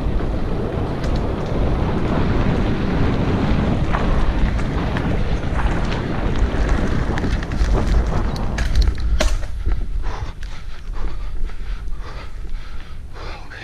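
Mountain bike riding over a gravel forest path, with wind buffeting the microphone and tyre rumble. About nine seconds in the wind noise drops and the crunch of gravel under the tyres comes through, with many sharp clicks and rattles.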